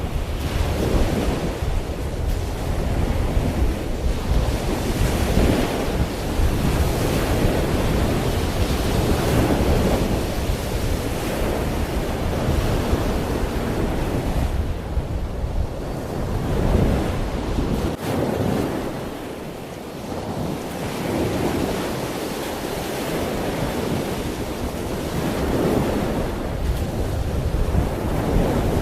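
Ocean waves breaking and washing in, the surf swelling and easing every couple of seconds, with wind buffeting the microphone in a low rumble that drops away about two-thirds of the way through.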